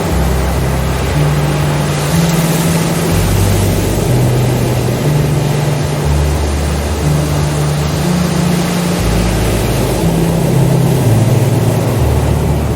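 Ambient sleep music: deep sustained synth notes that step from pitch to pitch every second or two over a low bass note that changes every few seconds, with a steady wash of noise behind them.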